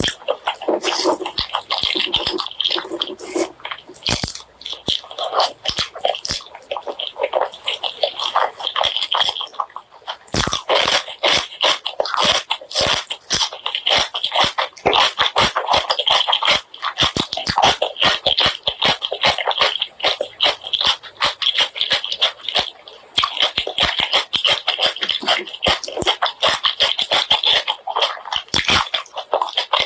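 Close-miked chewing of spicy pork leg curry and rice: a dense, continuous run of quick wet mouth clicks, with a brief pause about ten seconds in.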